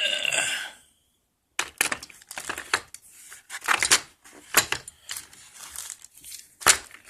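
Crinkling and clicking as the hydraulic crimper kit's packaging and parts are handled: a dense run of small crackles and knocks starting about a second and a half in, after a brief pause.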